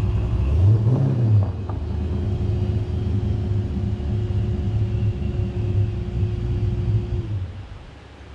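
1990 Saleen SC Mustang's V8 engine rumbling as the car drives off and stops, with a short rev that rises and falls about a second in. The engine sound cuts off near the end.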